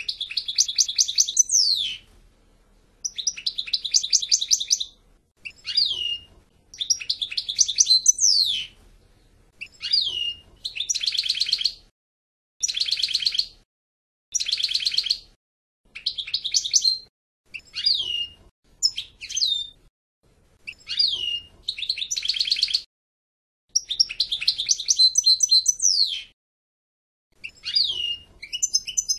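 European goldfinch singing: a long run of short twittering phrases made of fast trills and sharp downward-sliding notes, each a second or two long, broken by brief pauses.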